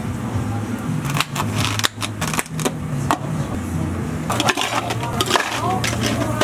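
Plastic drink cups and ice knocking and clicking on a cafe counter as drinks are handled, with a denser clatter of ice cubes tipped from a scoop into a plastic cup near the end, over a steady low hum of cafe equipment.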